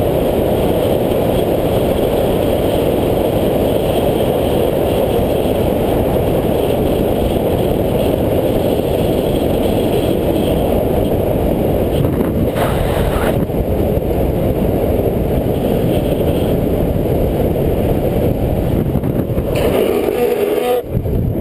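Loud, steady wind rushing over the camera microphone at downhill speed, with road rumble underneath. A brief harsher hiss comes about twelve seconds in.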